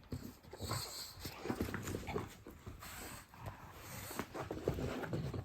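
English bulldog breathing noisily and grunting in short, irregular bursts while tugging at a toy in a game of tug of war.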